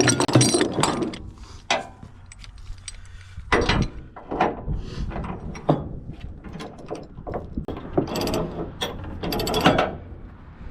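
Ratchet tie-down strap being cranked tight, its pawl clicking in quick runs with pauses between strokes, as a load is cinched down.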